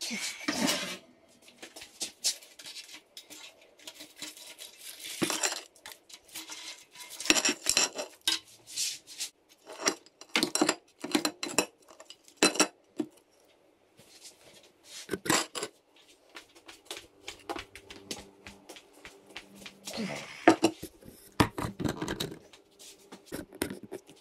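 Kitchenware clattering while food is dished up: metal tongs, a frying pan and a china plate knocking and clinking in irregular bursts, with a quieter lull about halfway through.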